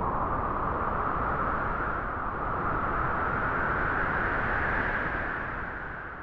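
Wind blowing through grass, a steady rushing that slowly swells and rises in pitch, then drops off suddenly at the end.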